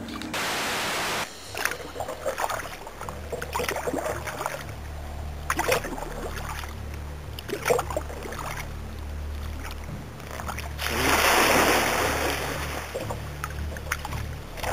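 Water sounds around a kayak: a flat rush of noise in the first second, then scattered small splashes and drips. About eleven seconds in comes a loud rushing splash of about two seconds, as an alligator surprised close to the bow bolts off through the water.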